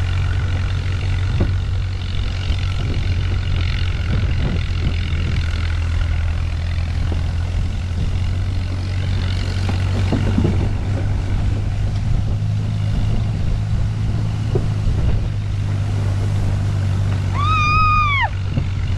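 Tractor engine running steadily as it tows a boat used as a sled over snow. A person gives one brief rising-and-falling shout near the end.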